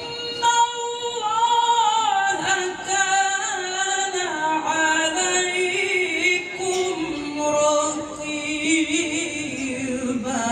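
Male Qur'an reciter's voice in melodic tilawah style: a long, ornamented chanted phrase sung on held high notes that step gradually lower in pitch.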